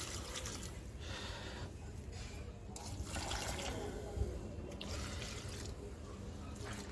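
Water poured from a steel bowl onto the soil of potted plants, in a few separate pours with short pauses between.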